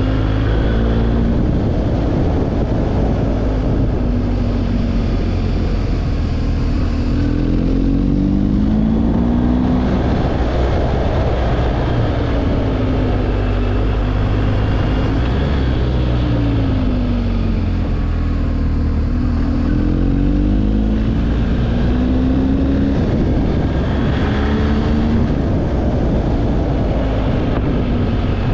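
Vehicle engine running while driving, its pitch rising several times as it accelerates out of bends, over a steady low rumble of wind on the microphone.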